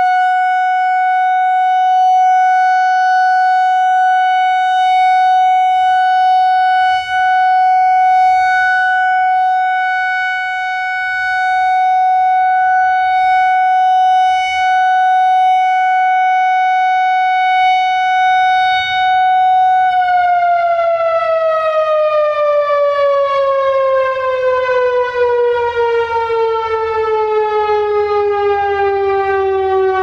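Whelen WPS-4004 analog electronic warning siren sounding its alert tone from a rotating horn array. It holds one steady high pitch for about twenty seconds, then winds down in a long, steady downward glide. The uploader believes this higher-pitched unit is a first-generation ESC-864.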